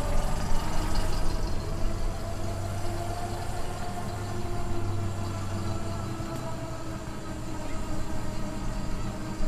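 The 1928 SOS QL bus's 4¼-litre side-valve engine running at a steady speed, a constant engine drone.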